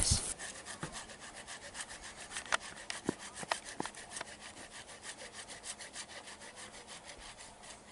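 Hand saw cutting through a tree limb in quick, even back-and-forth strokes, about four to five a second, with a few sharper clicks partway through. The strokes grow fainter toward the end.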